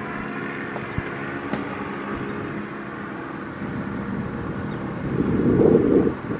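Federal Signal Thunderbeam RSH-10 outdoor warning siren sounding its steady alert tone, a held chord of tones that swells in level near the end.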